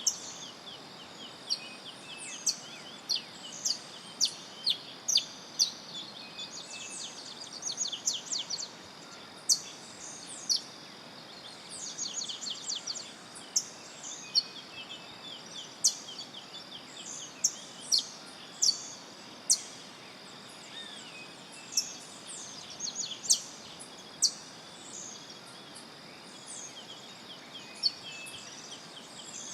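Cloud-forest birds calling: many short, sharp high chirps, some in quick rattling series, over a steady high insect hum.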